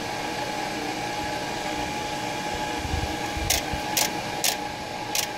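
Pro-Cut PFM 9.2 on-car brake lathe running steadily, spinning the car's hub and brake rotor during its automatic runout compensation cycle. Several short, sharp high clicks come in the second half.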